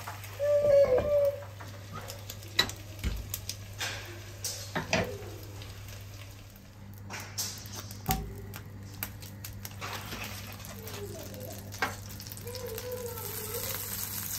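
A glass pan lid clatters onto a frying pan with a brief ring, followed by scattered knocks of utensils against a pan. Near the end, butter starts to sizzle as it melts in a hot non-stick frying pan, the hiss growing.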